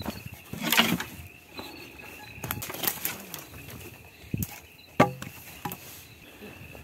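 Footsteps crunching through dry brush and twigs, with scattered cracks and knocks, the sharpest about five seconds in. A steady insect trill runs underneath.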